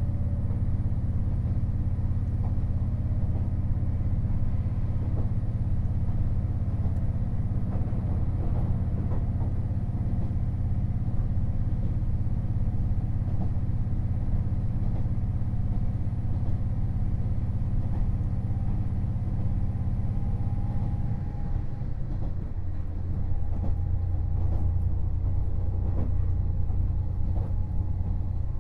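Running sound inside a KiHa 48 500-series diesel railcar: the diesel engine drones steadily under the floor together with rumble from the track. About two-thirds of the way through, the engine note drops and a thin high whine stops, and a few light clicks from the rails follow.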